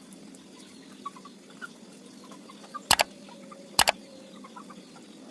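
Two sharp knocks about a second apart, the second a quick double, over a steady low hum, with a few faint short chirps.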